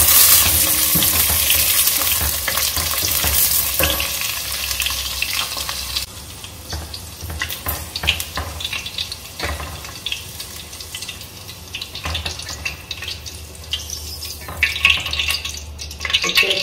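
Okra (ladies' fingers) sizzling as they fry in hot virgin coconut oil in a stainless steel pot, stirred with a silicone spatula. About six seconds in the sizzle drops sharply as the okra are lifted out, leaving lighter spitting of the oil with occasional clicks of the spatula, and the sizzle grows again near the end.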